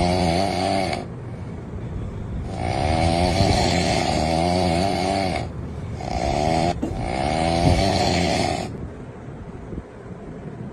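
A person snoring loudly: several long snores, each a wavering, pitched rattle lasting one to three seconds, with quieter gaps between. The snoring stops about nine seconds in, leaving low background noise.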